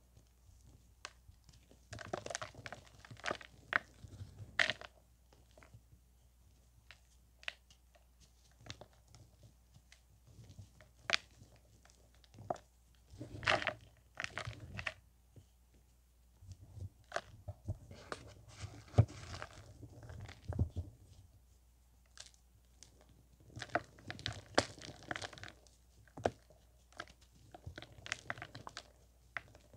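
Compacted powder blocks crunching and crumbling as fingers squeeze them apart, with loose powder sifting down. The crackling comes in irregular handfuls separated by quieter pauses.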